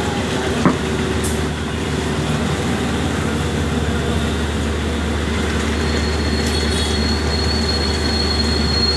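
Steady low mechanical hum under general street noise, with one sharp click a little under a second in and a thin high whine coming in about six seconds in and holding.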